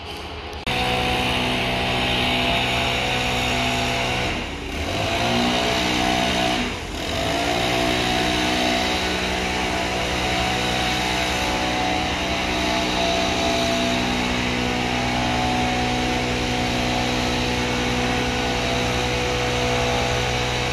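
Motor of a platform-washing machine running loudly and steadily after cutting in abruptly under a second in; about four and seven seconds in its pitch sags and climbs back, as if briefly loaded.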